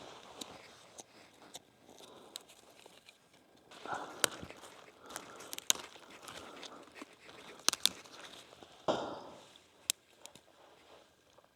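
Dry forest material being gathered and broken up for kindling: rustling and crunching, with several sharp snaps.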